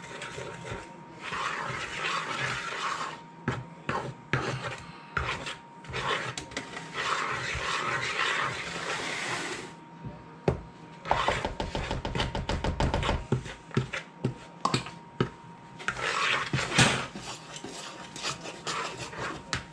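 A fork stirring and scraping stiff soda bread dough of flour, buttermilk and raisins in a plastic mixing bowl: stretches of rasping scrapes broken by sharp clicks of the fork against the bowl.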